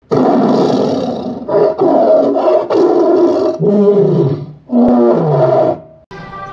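Loud animal roars laid in as an intro sound effect: about five roars in a row, each about a second long, stopping about six seconds in.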